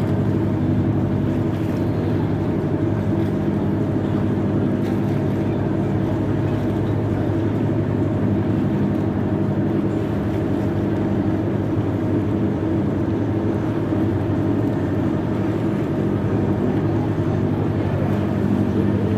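An old boat's engine running steadily, holding one even pitch with no change in speed.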